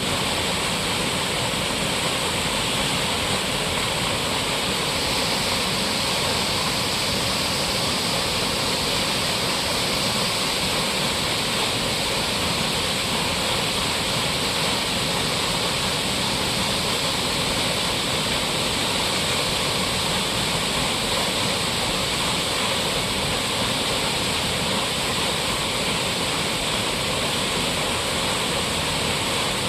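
Waterfall: water falling and rushing in a steady, loud, unbroken roar.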